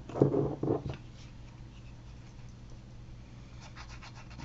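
Glue stick rubbed quickly back and forth along a strip of paper, a fast scratchy rhythm of strokes starting about three and a half seconds in.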